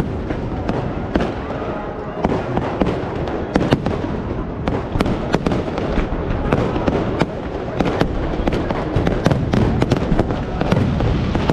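Aerial fireworks going off overhead in a dense, irregular string of sharp bangs and crackling pops, several a second.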